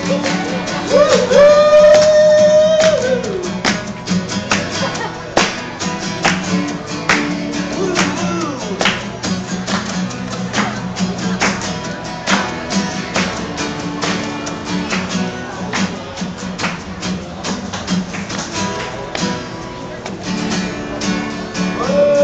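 Two acoustic guitars strummed in a steady rhythm, with a voice holding one long sung note about a second in that slides down at its end, and a new sung line starting near the end.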